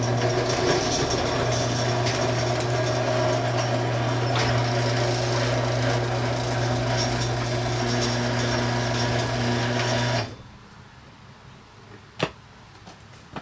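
Electric garage door opener running as the overhead door lifts: a steady motor hum that cuts off suddenly about ten seconds in. Two sharp clicks follow.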